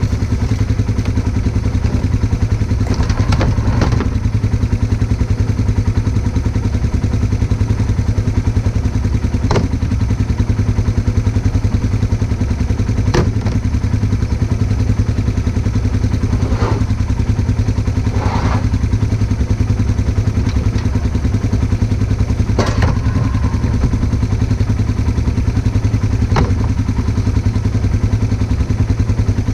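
An engine running steadily at a constant speed, with a few sharp clanks and knocks at irregular intervals.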